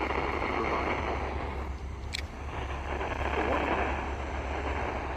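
NOAA Weather Radio receiver giving a steady hiss of static over a weak signal, with faint broadcast voice audio and a constant low hum underneath. There is a short high blip about two seconds in.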